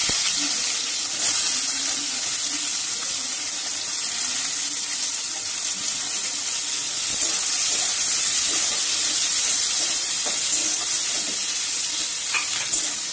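Chopped onions and green chillies sizzling in hot oil in a metal wok, a steady hiss, while a metal spatula stirs and scrapes them around the pan.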